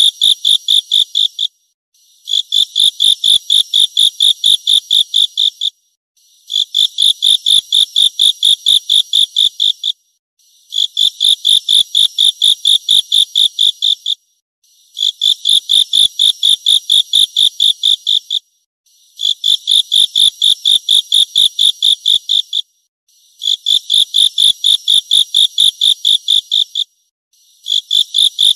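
A high-pitched insect chirping in evenly repeating bouts of about three and a half seconds, each bout a run of about four sharp pulses a second, with a short pause between bouts.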